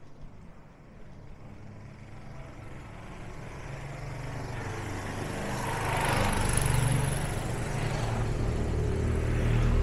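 Motorcycle engine approaching along the street, growing steadily louder and loudest near the end as it comes close.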